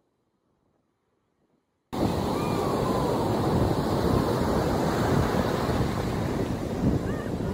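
Near silence for about the first two seconds, then the steady rush of ocean surf breaking on the beach starts abruptly, mixed with wind buffeting the microphone.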